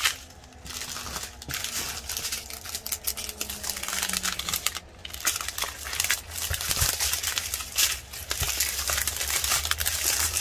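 Thin plastic packaging from a diamond painting kit crinkling as it is handled, in bouts with a couple of short pauses.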